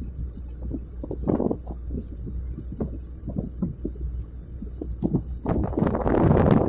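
Strong wind buffeting the microphone in irregular gusts, the heaviest near the end, over a steady low drone.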